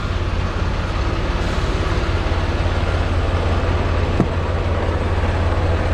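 Semi-truck's diesel engine running steadily with a strong low hum, and one faint click about four seconds in.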